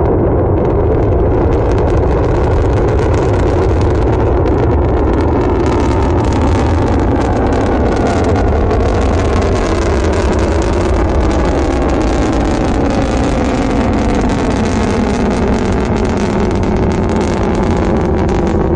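Long March 4C rocket's engines during ascent just after liftoff: a loud, steady deep rumble with crackling through it.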